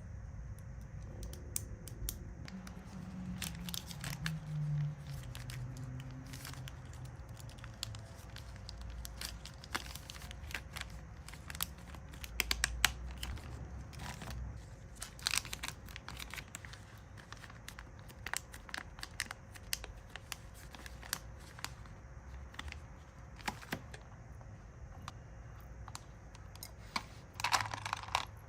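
Plastic packaging being handled, crinkling and tearing in many sharp, irregular crackles, over a steady low hum.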